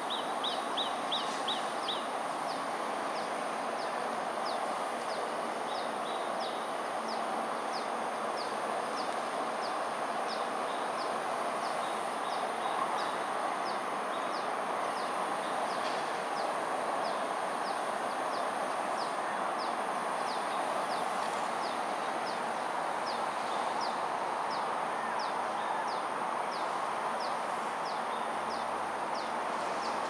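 Steady hum of distant city traffic, with a bird calling over and over in short, high, falling notes about one to two a second. A quicker run of notes comes in the first two seconds.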